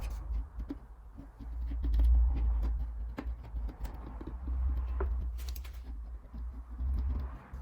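Acrylic grab adhesive being worked into the joints between OSB floorboards with a caulk gun and scraper: irregular clicks and knocks with some scraping over a steady low rumble.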